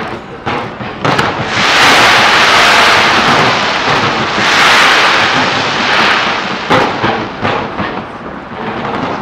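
Fireworks going off: sharp bangs about half a second apart near the start and again near the end, with a loud, dense hissing crackle filling the middle of the display.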